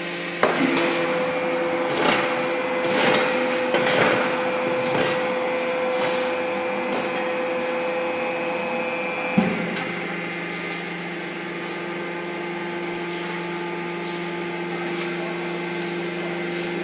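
Baler machine running with a steady mechanical hum, with knocks and clatter through the first few seconds. About nine seconds in, a sharp clunk comes as one of its tones drops out and the hum changes to a lower, steadier note.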